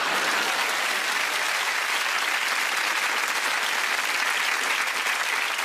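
Large theatre audience applauding steadily in response to a joke's punchline.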